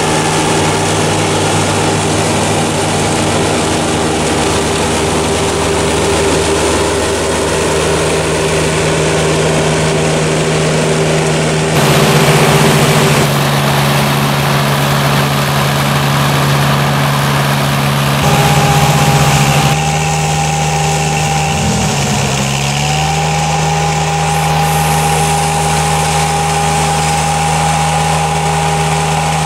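Engine and flail mulcher of a remote-controlled Berti E-Trail tracked mower running steadily while mowing, the sound changing abruptly several times between clips. About 22 seconds in the engine pitch dips briefly and recovers.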